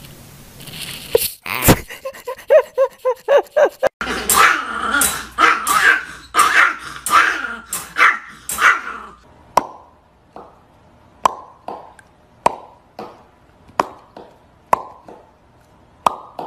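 Small dog barking rapidly and repeatedly in a wire crate, two to three barks a second for about five seconds. After that comes a string of short sharp clicks, roughly one or two a second.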